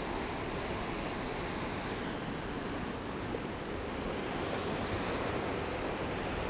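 Pacific Ocean surf washing steadily, mixed with wind.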